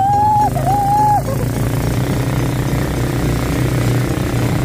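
A motor vehicle engine running steadily with a low, even rumble. In about the first second, two held pitched tones sound one after the other, each about half a second long.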